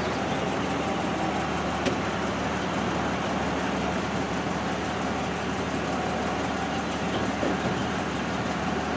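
A car engine idling steadily, with a single short click about two seconds in.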